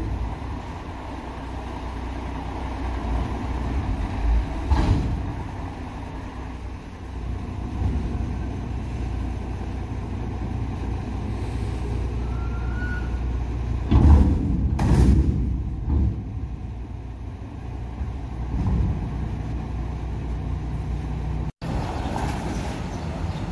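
Garbage truck's diesel engine running with a steady low rumble as its hydraulics lower the raised body, with a few loud knocks, the loudest about 14 and 15 seconds in. Near the end the sound breaks off abruptly and gives way to street traffic with a van passing.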